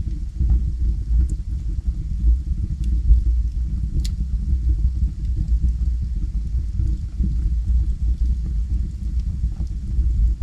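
Wood fire burning in a fireplace: a steady low rumble of flames with sparse, sharp crackles from the burning logs, one louder pop about four seconds in.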